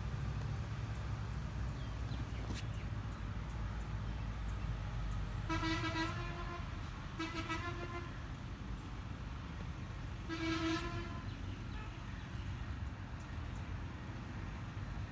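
A horn sounds three short toots, two close together about five seconds in and a third a few seconds later, over a steady low rumble.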